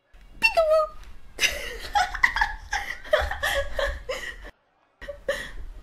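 A person laughing in a string of short, repeated bursts for about four seconds, then a brief pause and a couple more bursts near the end.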